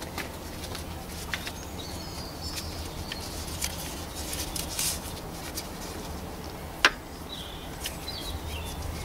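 Cloth rag wiping around the camshaft adjuster bore on the engine: soft rustling and scuffing with scattered light clicks, a louder sharp click a little before the end, and a few faint high chirps.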